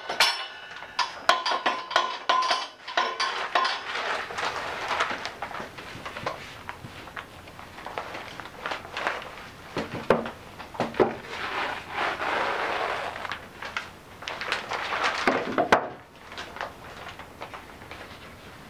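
Metal clinks and knocks from a bottle-jack hydraulic press worked with its steel handle to release the pressure on the pressed paper, ringing sharply over the first few seconds. Then irregular knocks and rustling as a wooden press board and wet felts are lifted and shifted, with one louder knock near the end.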